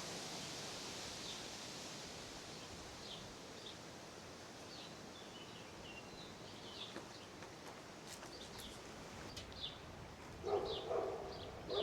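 Small birds chirping briefly and often over a faint, steady outdoor hiss, with a few louder, lower calls near the end.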